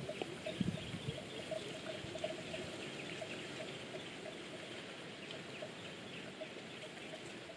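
Outdoor animal calls: a string of short low notes repeating a few times a second, with scattered higher chirps, over a steady background hiss. A few low thumps come in the first second.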